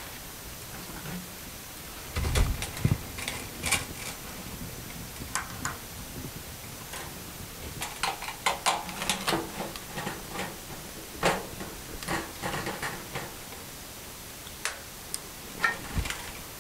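Wire cutters clicking as they snip the wires of a fluorescent light ballast, with knocks and rattles from the metal ballast and fixture as it is worked loose. A few heavy knocks about two seconds in are the loudest; the clicks come in irregular clusters after that.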